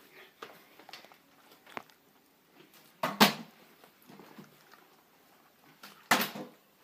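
Flipped plastic water bottles landing with two sharp thuds about three seconds apart, with a few faint knocks between.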